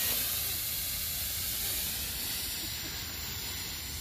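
Punctured lithium-polymer drone battery venting in thermal runaway: a steady hiss of escaping smoke that slowly fades. The pilots think it was probably punctured when it stabbed into the ground.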